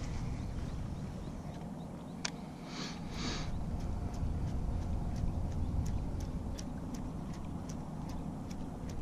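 Light ticks at about two a second from about four seconds in, from a baitcasting reel being cranked while a lure is worked back across the water. There is a steady low rumble underneath, and two short hisses about three seconds in.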